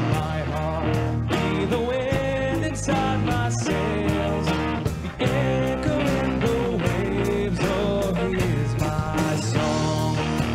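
Live worship band playing an instrumental passage, with electric guitar over bass and drums.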